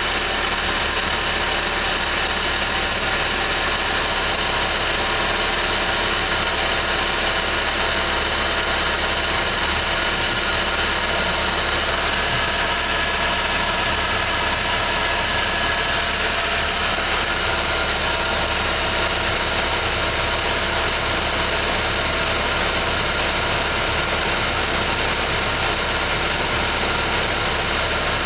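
2011 Ford Fiesta engine running steadily with a continuous high-pitched squeal over it. This is the irritating noise the owner says it makes after a cold start, on a car with only 10,000 km.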